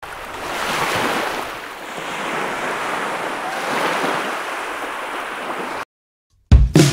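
Small waves washing on a sandy beach with wind buffeting the microphone, the surf swelling and easing; it cuts off suddenly just before six seconds in, and after a brief gap loud music starts near the end.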